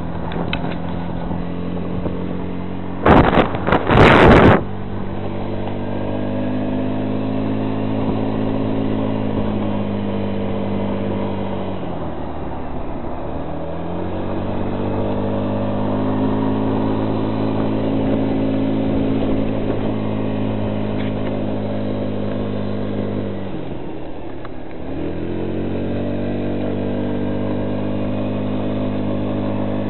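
A motor vehicle's engine running under way, its pitch rising as it speeds up, holding, then dropping as it slows, three times over. Two loud bumps or knocks come about three to four seconds in.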